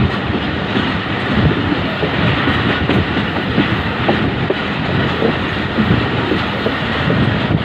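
Passenger coaches of an express train running along the track, heard from an open door or window. A steady rumble of wheels on rails, with many short, irregular clicks and knocks.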